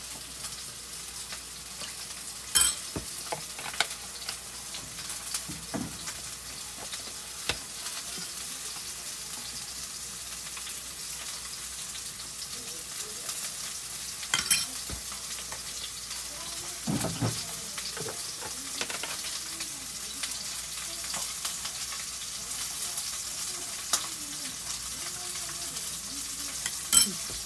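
Chicken thighs frying skin-side down in a nonstick pan, rendering in their own fat, with a steady sizzle. Three sharp clinks from a metal measuring spoon against the ceramic bowl stand out above it.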